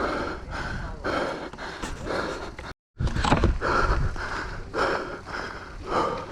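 A downhill mountain-bike rider panting hard after a lap, in quick, regular breaths, over a low rumble of wind on the microphone; the sound drops out for a moment about three seconds in.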